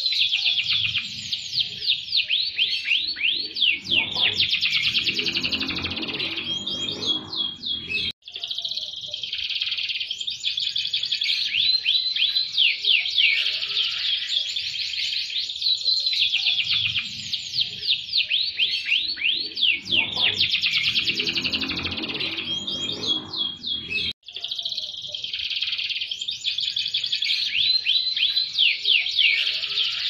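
Domestic canary singing non-stop in long, fast rolls and trills of sweeping high notes. The song cuts out abruptly for an instant twice, and the same stretch of song seems to repeat as if looped.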